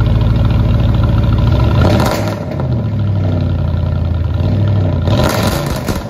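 Ford F-150's 5.4-litre Triton V8 running through a true-dual exhaust with high-flow cats and side-exit tips. It idles steadily and is revved briefly twice, about two seconds in and again about five seconds in.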